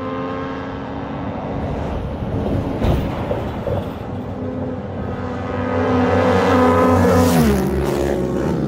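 Motor-vehicle engine drone on a highway that grows louder. About seven and a half seconds in, a vehicle passes close by and its engine pitch drops as it goes past.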